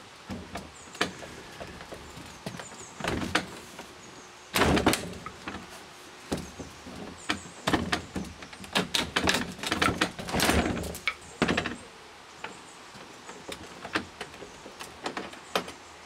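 Bolt cutters biting into the brass body of a padlock: irregular clicks, creaks and metal knocks of the jaws and lock against the hasp, with longer straining crunches about five seconds in and again around ten seconds in as the brass is cut through.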